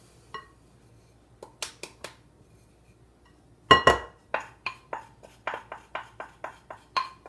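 Measuring cup of flour being tapped and knocked over a glass mixing bowl to empty it: a few light clinks, then a loud knock about three and a half seconds in, followed by a steady run of lighter taps, about three a second.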